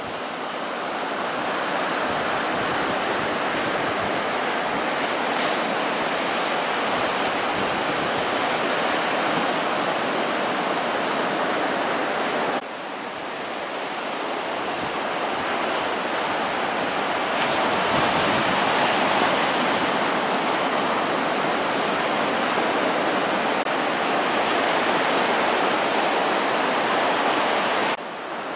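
Steady wash of small ocean waves breaking and running up the beach. It drops suddenly about twelve seconds in and again near the end, then builds back up.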